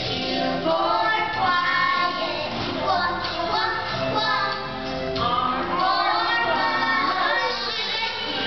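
A group of preschool children singing a song together with musical accompaniment.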